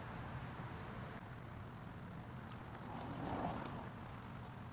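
Quiet background with a steady faint high whine and low hum, and a soft rustle about three seconds in from hands working a grease tube and latex glove.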